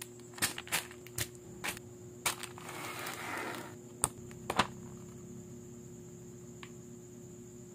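A plastic bag of building bricks crinkling and crackling in the hands, then a paper instruction sheet rustling as it is unfolded, with two sharp snaps of the paper about four seconds in. Afterwards only a steady electrical hum is left.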